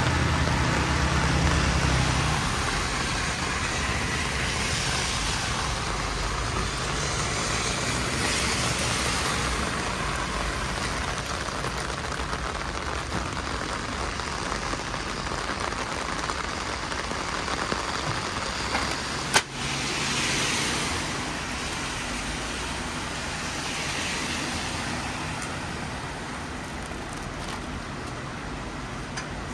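Cars passing on a wet street, their tyres hissing in several swells over a steady traffic hiss, with a low engine rumble in the first two seconds. A single sharp click comes a little after the middle.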